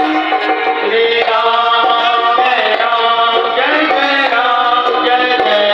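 Music: a voice singing over tabla and other instruments, loud and continuous.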